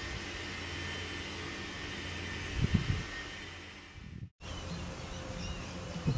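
Steady mechanical drone with a faint high whine, with a couple of knocks about two and a half seconds in. It fades out about four seconds in, and after a brief dropout a quieter outdoor background with short chirps takes over.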